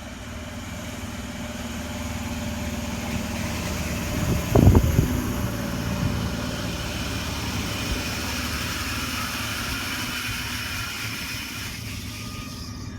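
Sydney Trains S-set double-deck electric train running into the platform, a steady mechanical hum with faint whining tones that swells and then slowly eases. A single loud clunk comes about four and a half seconds in.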